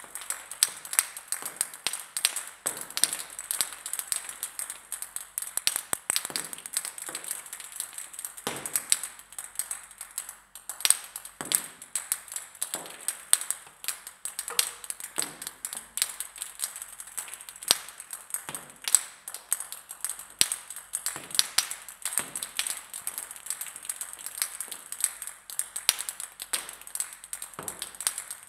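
Table tennis balls bouncing on a hard surface: a fast, irregular patter of light pinging clicks from several balls landing and rebounding.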